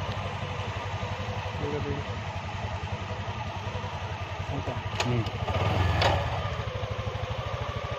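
A vehicle engine idling steadily, with a brief louder noise about five to six seconds in.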